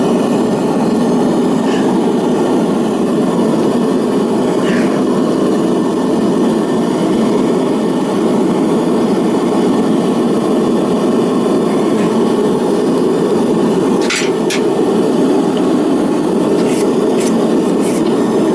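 Forge running with a steady, loud rushing noise, with a few short clicks: one about five seconds in, a pair about fourteen seconds in, and several near the end.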